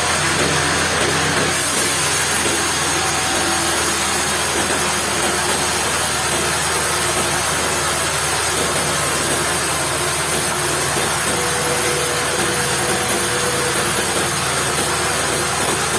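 Sawmill machinery running steadily: a continuous engine-like mechanical din with a dense hiss, which turns brighter about a second and a half in.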